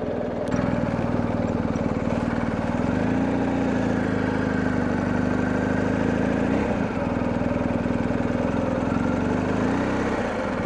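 BMW R1250GS Adventure's boxer twin engine running at low revs under way. The note steps up about three seconds in, dips briefly around seven seconds, and eases off near the end.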